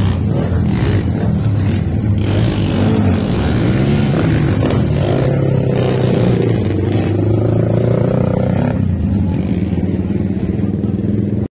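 Underbone motorcycle engines running and revving, their pitch rising and falling several times as the throttle is worked.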